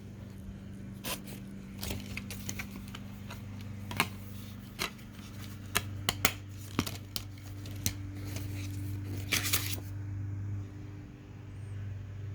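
A plastic DVD case and disc being handled: scattered sharp clicks and short scrapes of plastic, with a steady low hum underneath.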